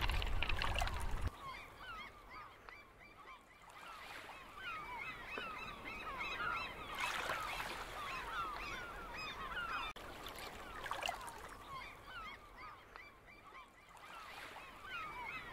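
A flock of birds calling, many short overlapping calls in a continuous chatter. About the first second is covered by wind buffeting the microphone.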